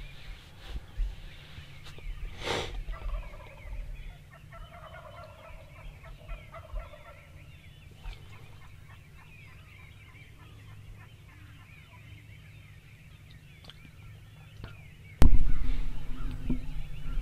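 Wild turkey (Rio Grande) gobbling once, a short rattling call about two and a half seconds in. A sudden loud bump comes near the end, followed by louder rustling.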